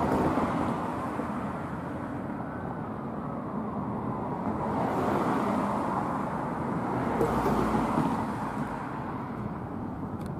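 Fire engine siren wailing, rising and falling in pitch, over the steady noise of street traffic.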